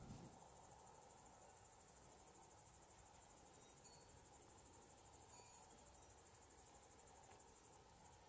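Crickets chirping at night: a faint, high-pitched, fast and even pulsing trill that stops near the end.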